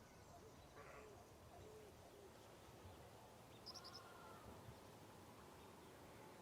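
Faint prairie ambience: a low, steady background with scattered, distant bird calls, a few short low hoot-like notes in the first two seconds, a brief higher call about four seconds in and a quick falling chirp near the end.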